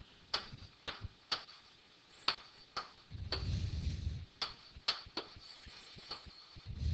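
Pen tip tapping and scratching on a writing surface while numbers are written by hand: a string of irregular sharp ticks, with a short low rumble about three seconds in.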